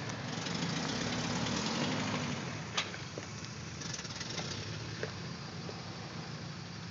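Off-road vehicle engine running at low revs, rising briefly in pitch and falling back in the first couple of seconds, under a steady hiss. A single sharp click about three seconds in.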